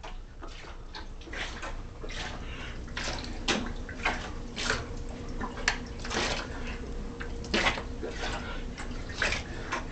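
Water splashing and sloshing in filled kitchen sinks as two people dunk their faces in to gulp up mouthfuls of water, in irregular splashes several times a second.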